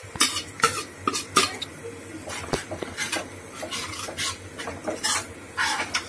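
A metal spoon scraping and knocking against a kadai while a thick curry masala is stirred and fried. The strokes are irregular, about one or two a second.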